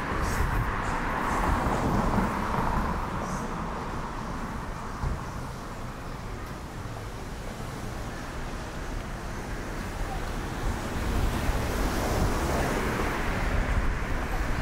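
Street traffic noise, swelling twice, about two seconds in and again near the end, over a low rumble of wind on the microphone.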